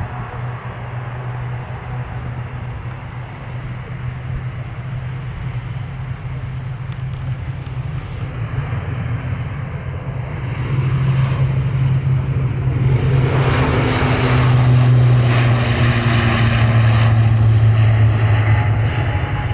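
Airliner engines running close by, a steady low hum with a broad roar that swells about halfway through and grows much louder in the last third, with a high whine over it near the end.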